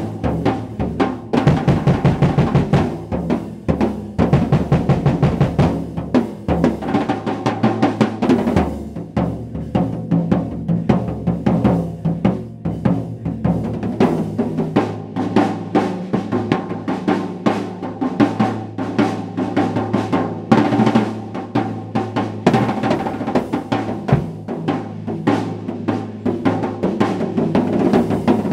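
Drum kit played with bare hands in a fast, unbroken solo, the palms and fingers slapping the toms and snare in dense runs of strokes.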